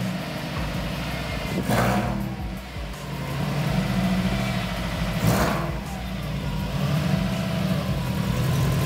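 Subaru Impreza flat-four engine running, with two swells about two seconds in and about five seconds in, under background music.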